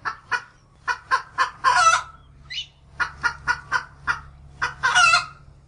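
A hen clucking in a quick string of short clucks, with a longer drawn-out call about two seconds in and again near the end.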